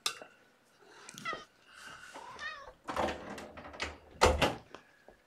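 Cat meowing a few short times, with sharp clicks and knocks in between; the loudest knock comes a little past four seconds in.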